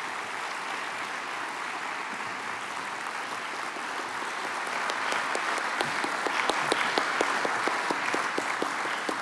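Audience applauding, a dense patter of handclaps. It grows a little louder about halfway through, with single sharp claps standing out.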